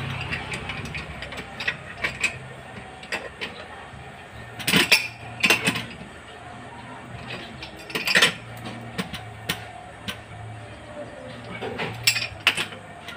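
Scattered metallic clinks and knocks of hand tools on pump and pipe fittings during plumbing work, with clusters of sharper hits about five seconds in, about eight seconds in and near the end, over a low steady hum.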